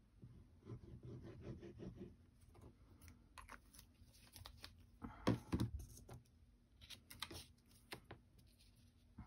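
Cardstock pieces being handled and set down on a cutting mat: soft paper rustles and light clicks and taps, the loudest cluster about five seconds in.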